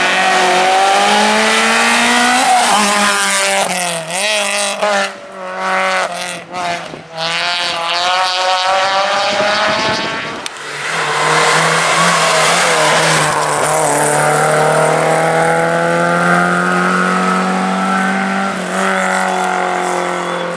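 Rally car engines at high revs through tight tarmac bends. The first car's engine note rises and falls, with several abrupt lifts and cuts around the middle as it brakes and changes gear. After a break about halfway through, another car's engine note climbs steadily as it accelerates out of the bend.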